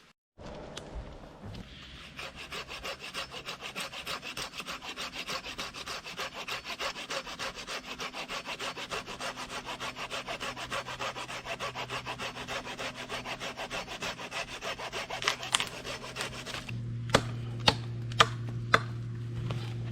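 Hand saw cutting through wood in quick, regular back-and-forth strokes, which stop near the end and are followed by a few sharp knocks.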